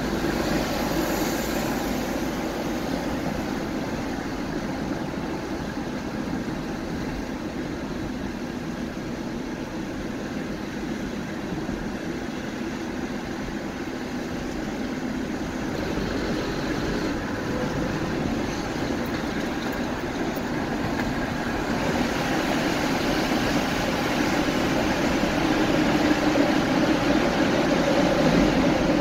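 Car running on the road: a steady mix of engine and road noise, growing a little louder over the last several seconds.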